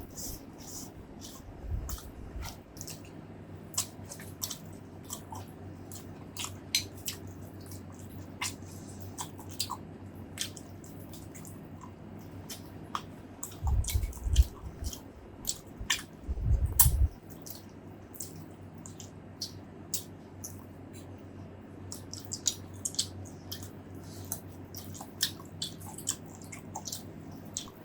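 Close-miked chewing of a meal of braised pork ribs and rice, full of small sharp wet mouth clicks and smacks. A couple of heavier, lower bites or thumps come about halfway through.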